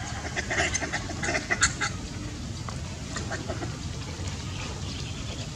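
Several short animal calls in quick succession in the first two seconds, then only a steady low background noise.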